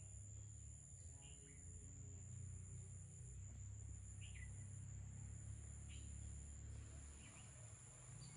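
Faint outdoor ambience: a steady high insect buzz, a few short bird chirps spread through it, and a low rumble underneath.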